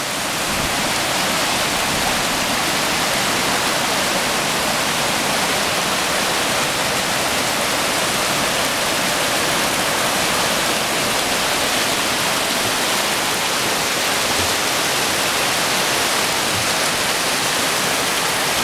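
Small mountain creek rushing and cascading over rocks: a steady, even rush of water.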